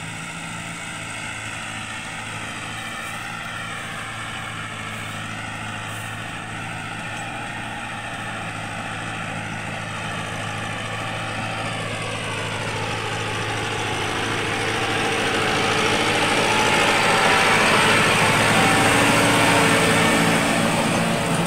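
Massey Ferguson 385 tractor's four-cylinder diesel engine running steadily under load while pulling a rotary tiller through the soil, growing louder as it draws near and loudest near the end.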